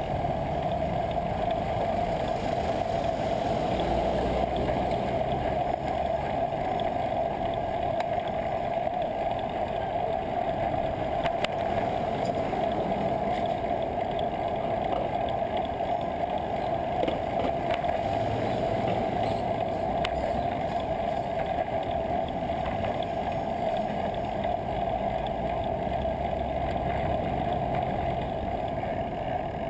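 Steady rushing wind and rolling noise on a bicycle-mounted camera's microphone while riding in city traffic, with the low rumble of nearby car engines rising now and then.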